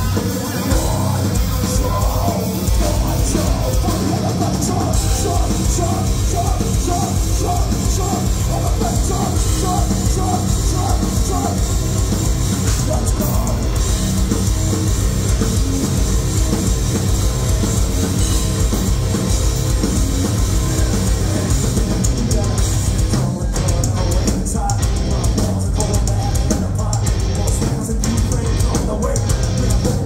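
Heavy metal band playing live at full volume: distorted electric guitars, bass and a fast, driving kick drum, with a repeated guitar riff through roughly the first third.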